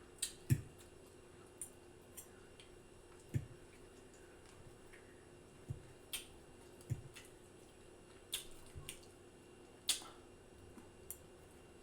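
Close-miked mouth eating sounds: chewing with wet lip smacks and clicks at an irregular pace, about a dozen in all, a few with a dull low thump.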